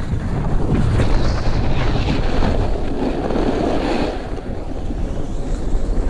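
Loud wind rumble buffeting an action camera's microphone as the rider slides downhill at speed, mixed with the hiss of edges scraping over packed, groomed snow.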